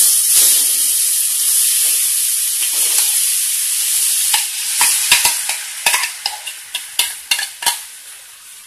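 Grated carrot dropped into hot ghee in a pan, sizzling loudly, the sizzle dying down over the next few seconds. From about four seconds in, a spoon clicks and scrapes against the pan as the carrot is pushed in and stirred.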